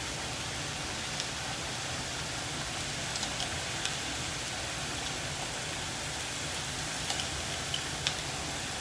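Chicken pieces sizzling steadily in a hot grill pan under a grill press, with a few faint clicks scattered through.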